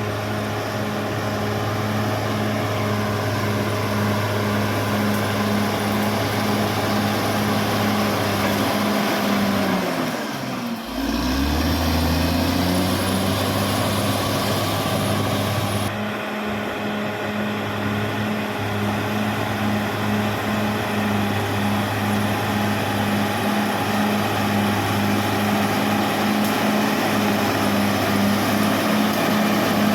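Caterpillar D6R XL bulldozer's diesel engine running steadily. About a third of the way through, its pitch drops sharply and then climbs back up.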